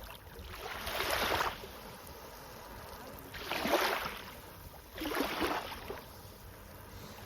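Small sea waves washing in, three swells of rushing surf about a second long each, over a low steady rumble.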